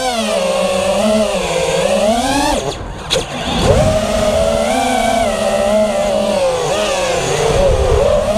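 2650 kV brushless motors and propellers of an FPV racing quadcopter, heard from the GoPro mounted on it, whining in several stacked tones that rise and fall together with the throttle. About three seconds in the whine briefly dies away, then comes back.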